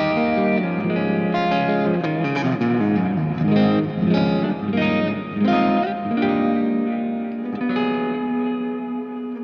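Electric guitar through an Axe-FX III lead preset with lots of delay and reverb, playing a run of melodic notes and then holding one long note near the end.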